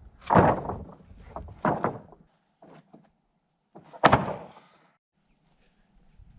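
Sawn wooden boards being dropped or laid onto a pile: about four heavy thunks, two of them loudest, the last about four seconds in.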